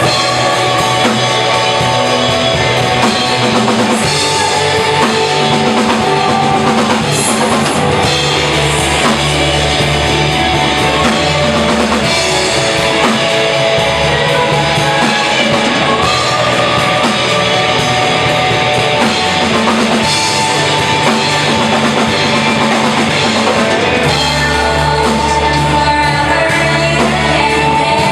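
Live rock band playing, with a drum kit, guitar and bass keeping a steady beat.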